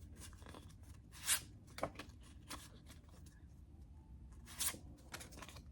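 Paper photo cards being handled and shuffled through, a few short crisp rustles and slides, the loudest about a second in and again near the end.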